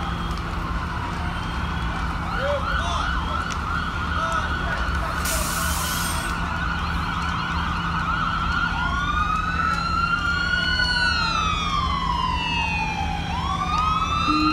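Emergency vehicle sirens sounding at once: a steady warbling tone at first, then from about nine seconds in a slow wail that rises and falls, joined near the end by another rising wail. Under them runs a steady low engine hum, and there is a brief hiss a little over five seconds in.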